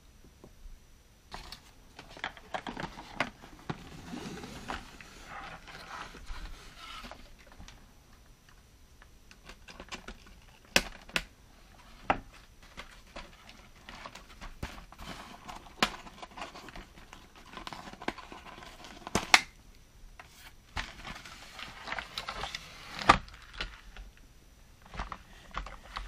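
Hard plastic toy pieces being handled, clicking and knocking against each other and the table, with cardboard packaging rustling and scraping. Stretches of rustling alternate with a handful of sharper clicks.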